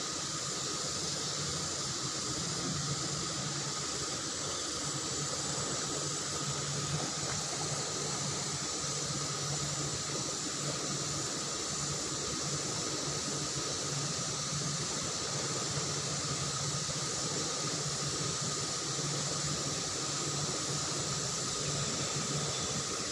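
Fast-flowing river water rushing, a steady even hiss that does not change, with a thin steady high tone running through it.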